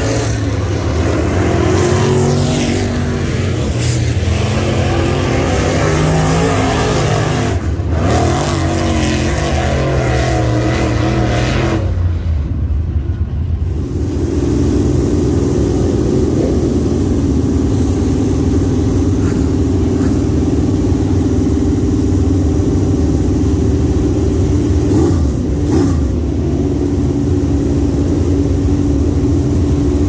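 Dirt late model race car V8 engines running hard, the pitch shifting up and down through the first half. About twelve seconds in the sound briefly thins, then settles into a steadier, even drone.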